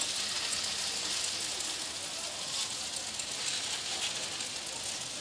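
Egg and onion batter frying in oil on a flat iron tawa, a steady sizzling hiss with small crackles.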